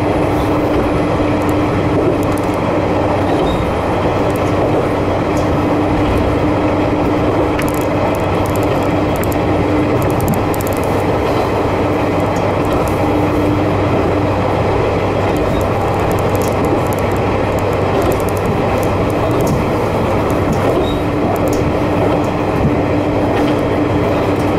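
Kanto Railway Joso Line diesel railcar heard from inside while running steadily: engine drone with a low, steady hum, and the wheels rolling on the rails.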